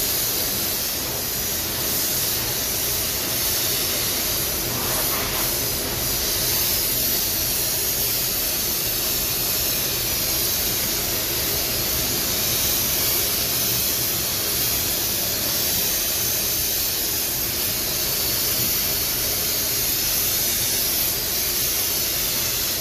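Steady hiss of compressed air from a blow gun, blowing dust off a car body panel before painting, over the rush of the spray booth's ventilation.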